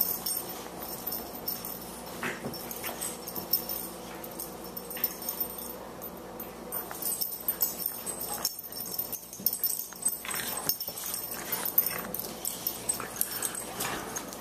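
An adult Boxer and a Boxer puppy play-fighting: irregular short dog vocalizations mixed with the scuffle of their wrestling.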